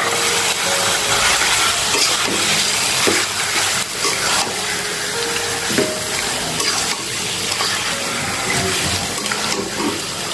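Meat pieces with spices sizzling steadily in hot oil in a pan, with a few faint clicks.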